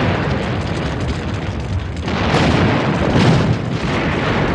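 Continuous rumbling booms of explosions, swelling louder about two seconds in and again a second later.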